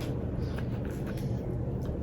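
Steady low hum with a few faint soft clicks.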